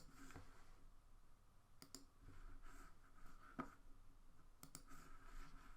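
Scattered computer mouse clicks, several of them in quick pairs, over near-silent room tone while editing on a computer.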